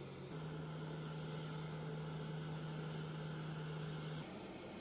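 Steady hiss of machinery with a low, even hum that shifts up in pitch just after the start and cuts off about four seconds in.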